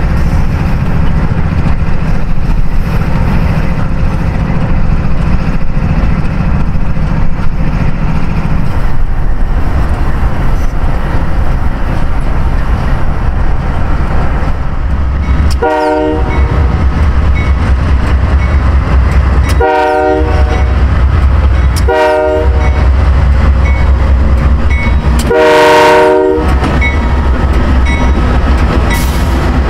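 Union Pacific diesel locomotives running as they approach and pass close by, a steady low engine rumble with wheels on rail. Past the halfway point the lead locomotive's multi-chime air horn sounds four blasts, the third shortest and the last the longest, in the long-long-short-long pattern of a grade-crossing signal.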